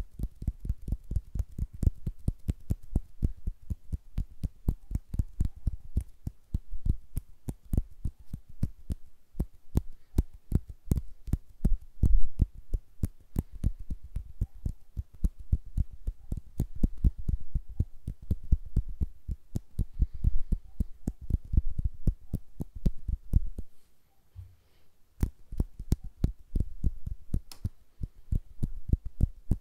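ASMR hand sounds: fingers and hands fluttering and moving right at a stereo microphone's capsules, making a rapid, uneven run of low thumps, several a second, with a pause of about a second near the end.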